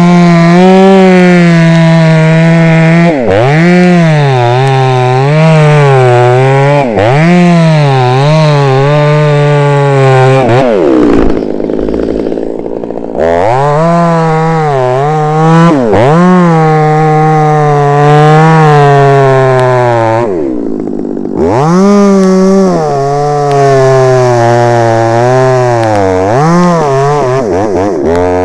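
Two-stroke chainsaw running at full throttle and cutting wood, its pitch sagging and recovering again and again as the chain bites. It drops back to a low idle twice, about a third and about two-thirds of the way through, then revs up again.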